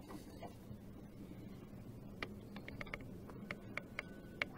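Faint, irregular light clicks, about a dozen, starting about halfway through, over a low steady hum.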